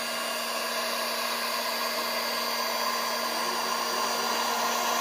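Heat gun running steadily, blowing hot air: an even rush of air over a constant motor hum. It is being used to heat and pre-shrink wrinkled vinyl wrap film.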